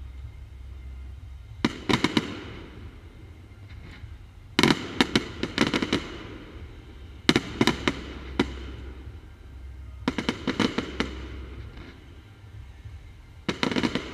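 Fireworks display: aerial shells bursting in quick clusters of several sharp bangs, a new cluster every two to three seconds.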